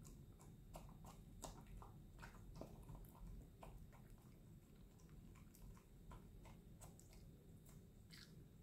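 Faint eating sounds of a dog: irregular clicks of tongue and teeth against a stainless steel bowl, with chewing, busiest in the first few seconds.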